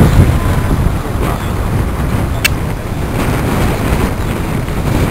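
Wind buffeting the microphone in an irregular low rumble, with a gathered crowd faintly audible underneath and a single brief sharp click about two and a half seconds in.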